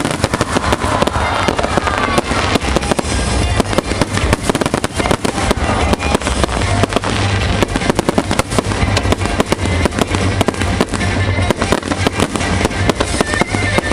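Aerial fireworks display: a dense, continuous barrage of bangs and crackles, many bursts a second, over a low rumble, with music playing underneath.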